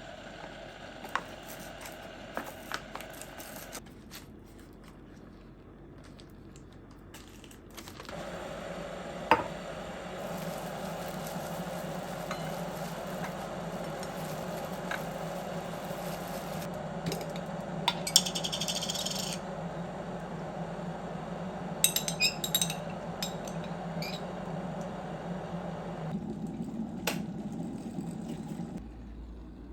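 Small hard objects being handled, giving scattered clinks and knocks, with a steady rushing noise that starts about eight seconds in.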